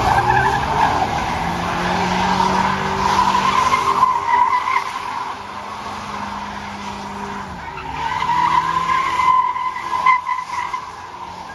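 Car doing donuts, its rear tyres squealing in a high, wavering screech over the engine held at high revs. The squeal eases off about halfway through and builds again near the end.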